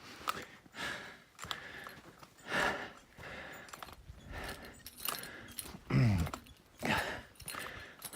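A hiker breathing hard while climbing, with about one breath a second and a low falling grunt about six seconds in, over light clicks and jingling.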